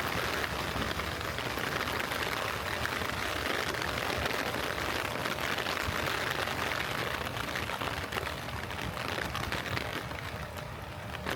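Gentle rain falling: a steady hiss with scattered drops that eases off about eight seconds in.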